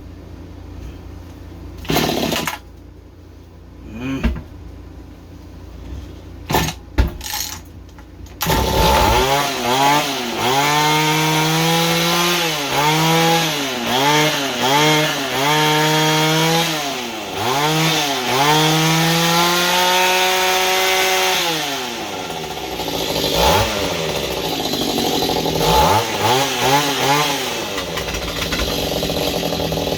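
Mantis mini tiller's small engine. After a few knocks it catches about eight seconds in, then runs with its speed rising and falling about once a second, and settles lower and unevenly near the end. It will not hold a steady idle after a carburetor rebuild.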